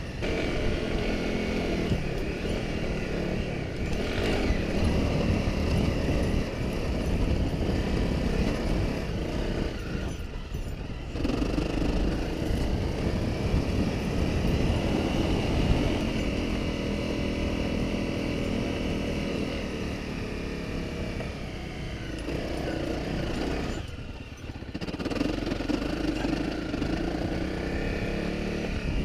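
Honda CRF250 Rally's single-cylinder engine running while riding along a sandy desert track, with wind noise over the microphone. The engine note rises and falls with the throttle and drops away briefly twice, about ten seconds in and again near twenty-four seconds.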